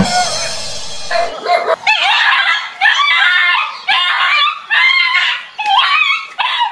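A dog barking repeatedly in quick, short, high calls as it goes for a stuffed toy tiger. The barking follows a harsh, noisy yelp or cry in the first second.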